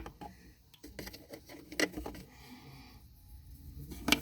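Small plastic toy pieces being handled and unpacked: a few sharp clicks and taps, the loudest near the end, with light rustling in between.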